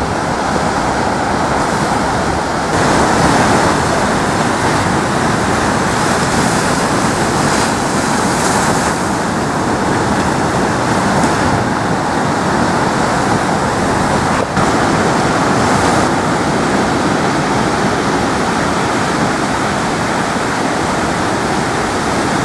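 Ocean surf breaking and washing in, a steady rush of waves that grows a little louder about three seconds in.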